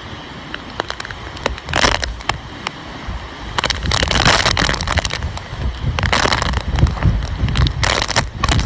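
Typhoon wind and heavy rain: a loud rushing storm that swells in several gusts, buffeting the microphone with a low rumble and scattered crackling hits.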